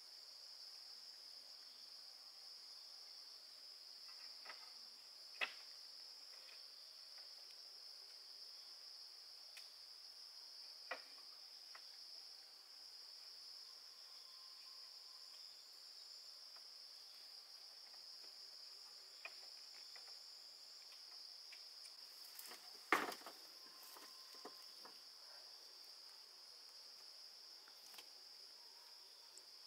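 Steady high-pitched chorus of insects, with a few sharp clicks or knocks, the loudest about two-thirds of the way through.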